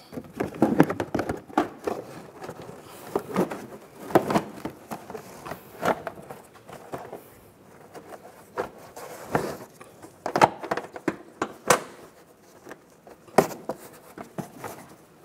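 Mini Cooper's inner fender liner being worked into the front wheel well by hand: irregular rustles, scrapes and light knocks as the liner rubs and taps against the body and strut.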